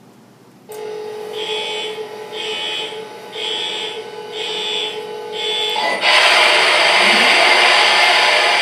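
Sound system of an MTH RailKing Imperial SD70ACe model diesel locomotive playing its start-up sequence: a steady hum with five evenly spaced alarm-like beeps about a second apart, then about six seconds in a much louder diesel engine noise as the model's prime mover starts up.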